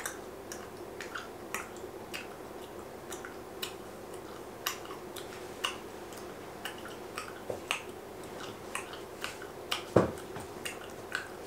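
Chewing gum being cracked in the mouth: a run of sharp clicks, about two a second. About ten seconds in comes a single heavier thump.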